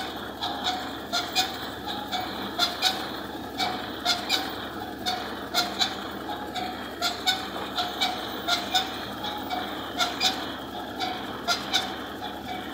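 Tractor-driven wheat thresher running under load, its 50 HP tractor turning the PTO at about 1000 rpm: a steady mechanical din with a pulsing hum, pierced by sharp clacking knocks a few times a second at uneven intervals.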